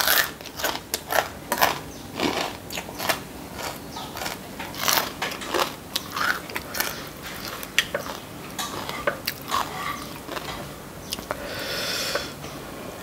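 Close-miked eating sounds: crisp pork rinds being chewed with crackly crunches, mixed with clicks of a metal spoon against a ceramic bowl as chili paste is scooped.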